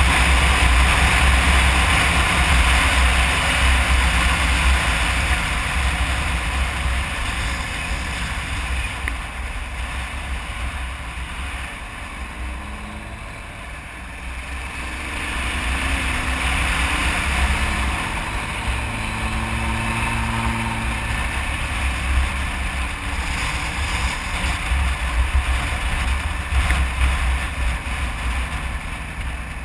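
Riding wind rushing over the microphone on a moving Kawasaki KLR 650 dual-sport, with the bike's single-cylinder engine running underneath. The rush eases around the middle and then builds again as the engine note climbs.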